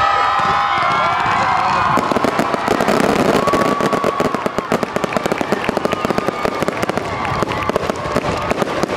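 Crowd cheering and shouting for the first two seconds. Then fireworks take over: dense, rapid crackling and popping from crackle-star shells, many pops a second, running on to the end.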